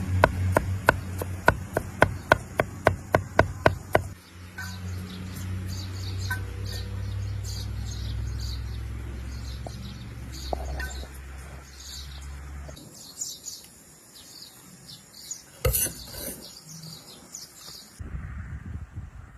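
Rapid rhythmic knocking, about four a second, for the first few seconds. Then birds chirp over a low steady hum, and there is a single sharp knock near the end.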